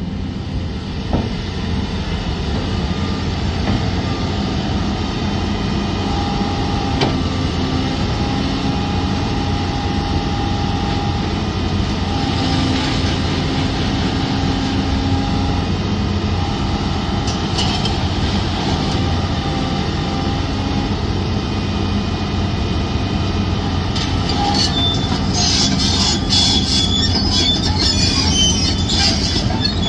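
Volvo EC750DL excavator running steadily, its diesel engine rumbling under a few held whining tones. From about 24 s in, high metallic squealing and clanking build up over the engine.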